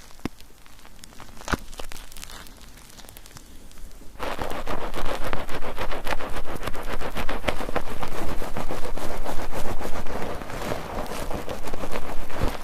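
Bar soap being lathered in a mesh foaming net, with wet crackling and squelching of bubbles. Only scattered small clicks at first, then about four seconds in a dense, louder lathering sound starts and keeps going.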